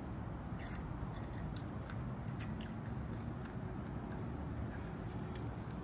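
Faint small clicks and light scrapes of a little metal perfume bottle, its stopper and chain being handled, over a steady low background hum, with a few short high chirps.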